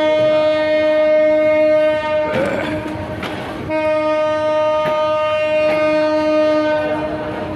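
Locomotive horn of a departing intercity passenger train sounding two long steady blasts: the first breaks off about two seconds in, the second starts about a second and a half later and stops near the end. Between and under the blasts the coaches rumble past with a few knocks of wheels over rail joints.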